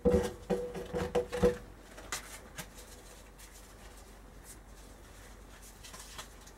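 Yu-Gi-Oh! trading cards being handled on a wooden table. A louder cluster of short handling sounds comes in the first second and a half, then only scattered faint taps and rustles of the cards.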